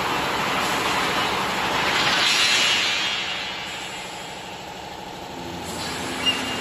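Rebar processing line running: a steady rumbling, rattling mechanical noise from the roller conveyors and machinery. It swells about two seconds in, eases off through the middle and builds again, with one short sharp tick near the end.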